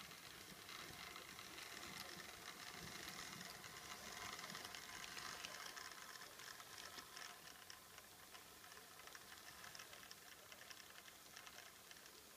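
Faint whirring and fine ticking of an H0-scale model SNCF diesel locomotive running along model railway track, a little louder in the first half and easing off after.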